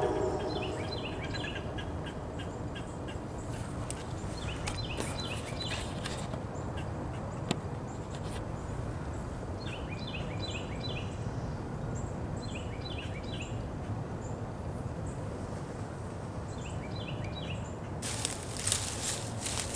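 Bursts of rapid, short chattering calls from a small animal in the thicket, repeated every few seconds over a steady outdoor hiss. Near the end, a crackling rustle in the brush.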